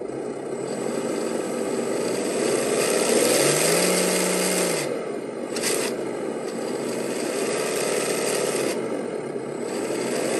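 Simulated engine sound from an ESS-Dual engine sound simulator's small speaker fitted to an RC rock-crawler truck. It runs steadily with its revs rising and falling three times, the biggest rev about four seconds in, and a short click a little later.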